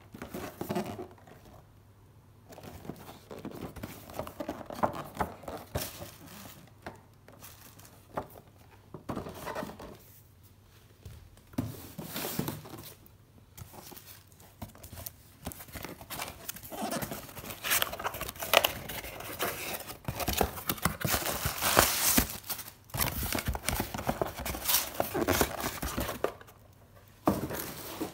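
Packaging being handled and opened: irregular crinkling and tearing of wrapping, busiest and loudest in the second half.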